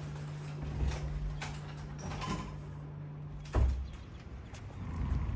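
Shoes being pulled from a shoe rack and a door being handled: a few knocks and creaks over a steady low hum. A louder thump comes about three and a half seconds in, after which the hum is gone and an open-air rush takes over.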